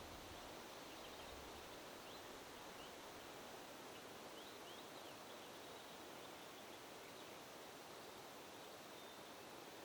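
Faint, steady wind rustling, with a few faint, high, short bird chirps scattered through the first half and once near the end.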